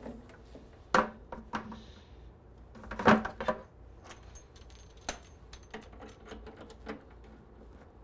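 Clicks and knocks of a rubber washing-machine hose and its metal coupling being handled and fitted to a brass service valve, with two louder knocks about one and three seconds in.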